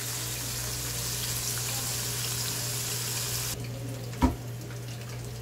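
Hot oil sizzling steadily as chicken wings, cheese sticks and potato fries deep-fry in a pan. About three and a half seconds in the sizzle drops off sharply as the mesh strainer of fried food is lifted out of the oil, followed by a single sharp knock.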